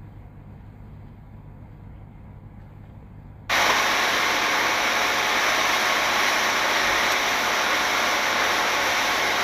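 A low steady hum. About three and a half seconds in, a loud, steady rushing hiss cuts in abruptly and holds, like wind or spray noise on the microphone of a boat under way.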